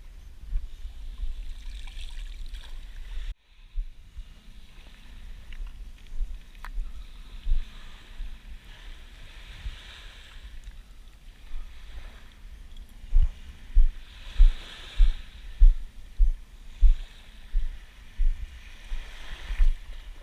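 Wind rumbling on the microphone over shallow surf water sloshing, with a run of regular low thumps, about two a second, through the second half.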